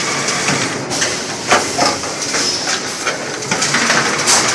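CNC amorphous core cutting machine running, with short hisses of compressed air from its pneumatic cylinders about a second and a half in, again soon after, and once more near the end, over a steady mechanical noise.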